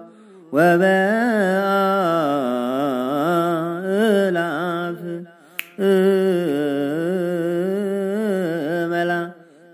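Ethiopian Orthodox Ge'ez liturgical chant (zema) in the slow zimame style: long melismatic sung phrases with wavering pitch. The chant breaks off briefly about half a second in, around five seconds in and near the end, with a single sharp click in the middle pause.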